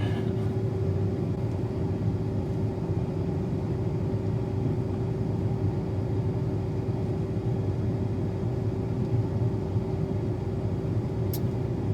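A vehicle engine running steadily: a continuous low rumble with a steady hum over it, unchanging throughout.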